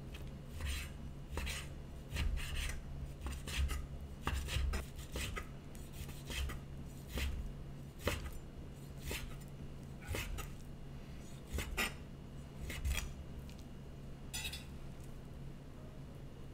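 Chef's knife slicing raw skirt steak into thin strips on a wooden cutting board: a run of irregular sharp cuts, roughly one or two a second, stopping about two seconds before the end.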